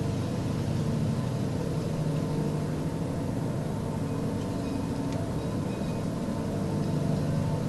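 Continuous low droning hum of several steady tones layered together, like a distant aircraft that never passes; its source is unidentified.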